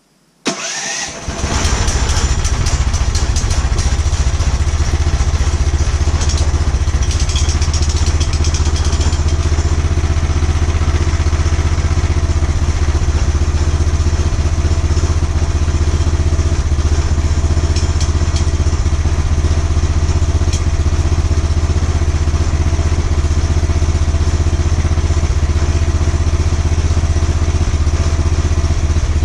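Small gasoline engine on a homemade bandsaw sawmill's head starting up about half a second in, then running steadily with a strong low hum.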